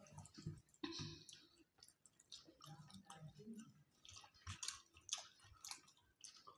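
Faint eating sounds: chewing and small irregular clicks and smacks as fingers mix rice and fish curry on steel plates.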